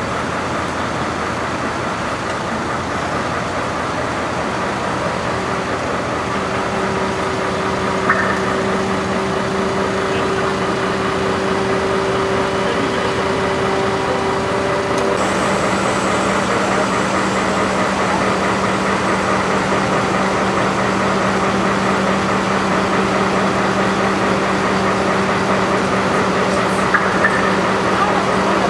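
Mercedes-Benz Actros turntable ladder truck's diesel engine running steadily to power the ladder's hydraulics while the ladder and its rescue basket are moved, with a steady hum that comes in a few seconds in and holds. A couple of brief clicks are heard.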